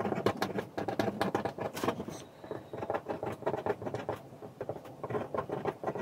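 Pen writing on paper: quick scratching strokes and light taps of the tip as letters and numbers are written, with a short lull a little past two seconds in.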